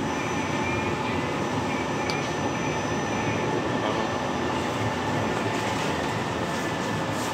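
Light-rail tram (CAF Urbos) running along its tracks, heard from inside the passenger cabin: a steady rolling rumble with a faint, steady high tone above it and a single light tick about two seconds in.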